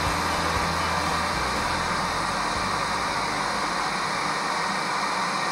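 Steady hiss like static, with the last low notes of the song's closing chord dying away in the first second.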